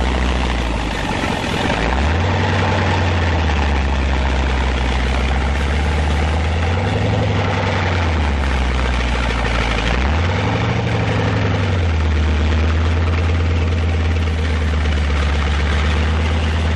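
Heavy tank engine of an M4 medium tank dozer running under load, with the revs dropping and climbing again several times as it works.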